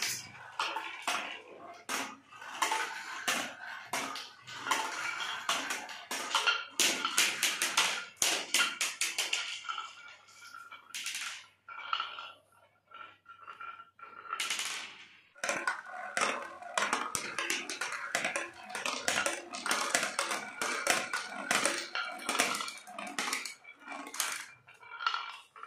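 Marbles rolling and clattering down a homemade marble run of plastic channels, a plastic funnel and a wooden zigzag track: a dense run of clicks and knocks with a steady rolling tone under them. The run drops away for about two seconds near the middle, then picks up again.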